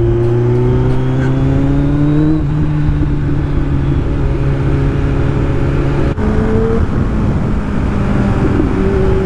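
Kawasaki Z1000's 1043 cc inline-four engine running under load while riding, its note rising slowly and changing pitch suddenly about two and a half and six seconds in.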